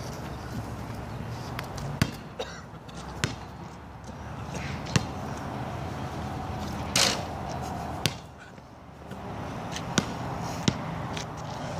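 Basketball bouncing on an outdoor asphalt court: single sharp smacks spaced a second or more apart, with one louder, longer knock about seven seconds in, over a steady low hum.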